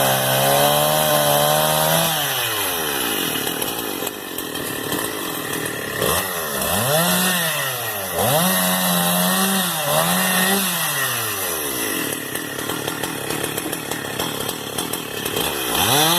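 Chainsaw cutting tree branches, its engine revving high, dropping back, then revving up again in several surges.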